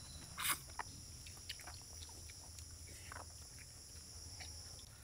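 A steady, high-pitched insect drone, with a few soft crunches and smacks of people biting and chewing fried fish and eating rice by hand.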